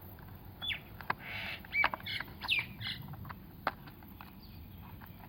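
Small plastic toy tractor parts being handled while a rear wheel and axle are fitted: faint scattered clicks and a few short high squeaks.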